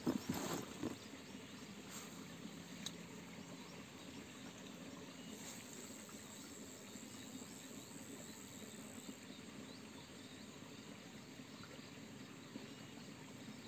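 Faint outdoor ambience with scattered small insect chirps over a steady low hiss. A few sharp knocks in the first second and a single click a few seconds in.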